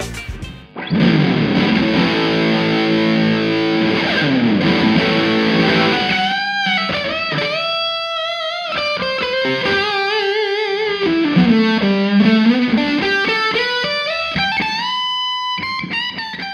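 Distorted electric guitar. From about a second in, a chord rings out with a sliding note. From about six seconds in, it plays a single-note lead line with vibrato and string bends, ending on held notes.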